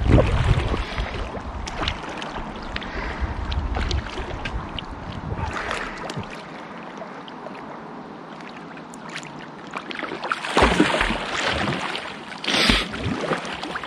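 Water sloshing and splashing close to the microphone, with a low rumble through the first few seconds and louder splashes a little over ten seconds in and again near the end.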